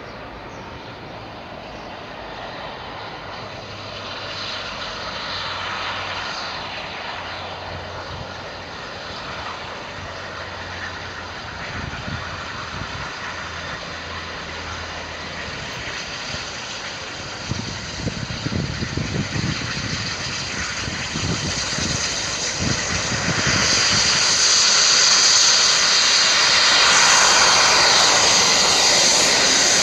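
Bulleid Battle of Britain class three-cylinder steam locomotive 34052 Lord Dowding approaching with its train, the rush of the locomotive and train growing louder throughout. Regular exhaust beats are heard a little past the middle. Near the end the sound turns to a much louder steady hiss as the locomotive draws near.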